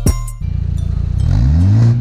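Background music with a beat cuts off a moment in. A BMW F30 then idles through an aftermarket valved exhaust and revs up, its pitch rising over most of a second near the end.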